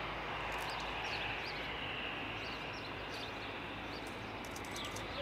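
Airbus A320's jet engines idling as the airliner taxis onto the runway, heard at a distance as a steady hiss with a low hum beneath it. Small birds chirp briefly over it several times.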